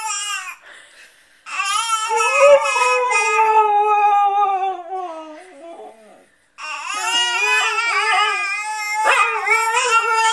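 Husky howling in long, wavering calls whose pitch bends up and down, the dog's 'talking' howl. There are three stretches: a short one at the start, a long one of about four seconds starting a second and a half in, and another starting just past the middle.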